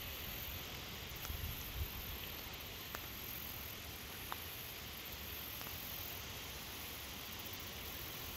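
Faint steady outdoor hiss, with a single faint tick about four seconds in: a golf putter striking the ball at a distance.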